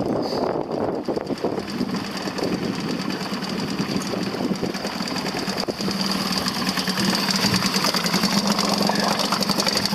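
Small boat's outboard motor running steadily at low speed, a continuous low hum with a high whine that grows a little louder in the second half.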